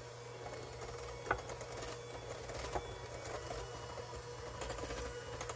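Electric hand mixer running steadily, its beaters creaming butter, sugar and egg in a glass bowl, with a couple of light clicks.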